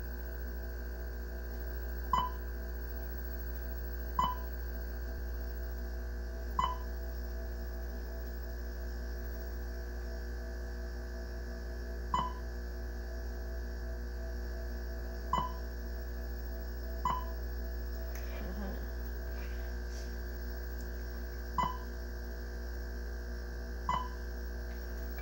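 Steady electrical hum from a computer and CRT monitor setup, with a short electronic beep every few seconds at uneven intervals, eight in all, while a light pen is used to draw on the screen.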